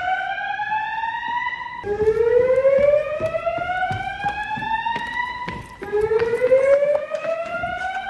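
Fire alarm voice-evacuation speakers sounding the whoop evacuation tone: a slow rising sweep about four seconds long that drops back and starts again.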